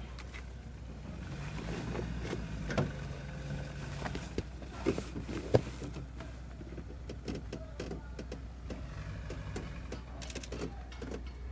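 A small motor whining twice over a steady low hum, with scattered clicks and knocks; the sharpest knock comes about five and a half seconds in.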